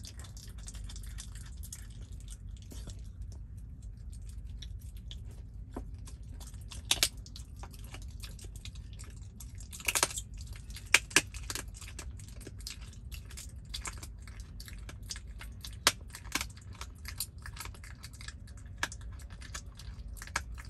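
Red fox chewing a raw chicken leg: irregular sharp crunches and clicks of its teeth on meat and bone, a few of them louder in the middle, over a low steady rumble.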